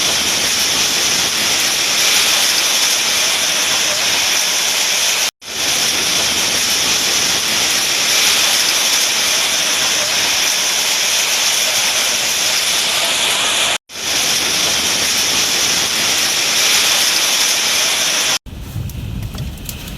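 Heavy rain and hail pouring down in a summer storm: a loud, dense, steady hiss, broken by three abrupt cuts between shots. After the last cut, near the end, it gives way to a quieter, deeper rumble.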